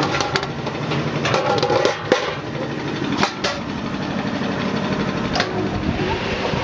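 Machinery running with a steady hum, broken by several sharp metallic clanks as a wire mesh basket of cut potato strips knocks against the stainless steel drum of a dewatering and de-oiling centrifuge.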